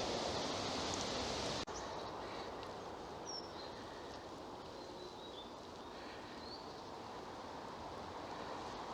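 Steady hum of road traffic from a nearby main road, with a few faint, short, high bird chirps. The level drops abruptly a little under two seconds in.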